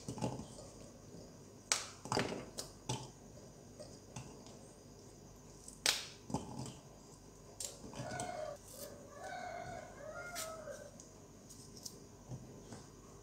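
Vegetables and chilies dropped one by one into a plastic chopper jar: scattered light clicks and taps against the plastic, a few sharper ones in the first half.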